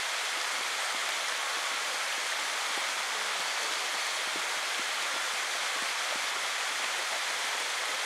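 Steady rush of a waterfall pouring into the pool below it.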